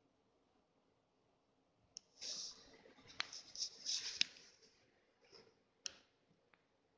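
Faint rustling and scraping with several sharp clicks from about two seconds in, from the recording phone being handled and moved against soft bedding. A last click comes near the end.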